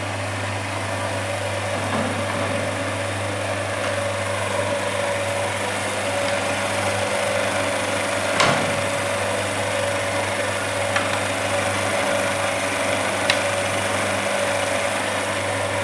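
Electric drill running steadily with a constant motor whine, a few sharp clicks sounding over it, the loudest about halfway through.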